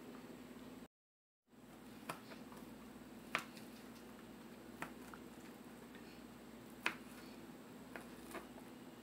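Knife clicking and tapping against a plastic cutting board while cutting grilled chicken breast, about six sharp separate clicks one to two seconds apart. A steady low hum runs underneath, and the sound drops out completely for about half a second about a second in.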